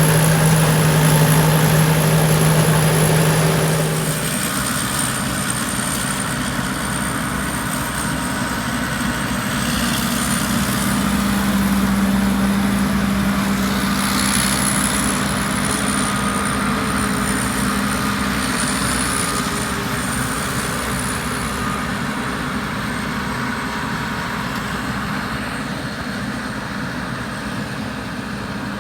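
Phimai Charoen Kan Chang combine harvester running steadily with a thin high whine above the engine note. About four seconds in, the low engine note drops and the sound gets a little quieter.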